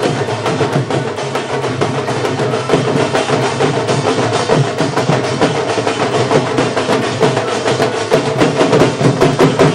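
Procession music with fast, continuous drumming: a steady run of sharp drum strikes over a dense, unbroken accompaniment.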